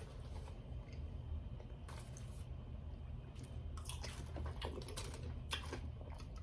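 Faint chewing, with scattered soft mouth clicks over a low steady hum.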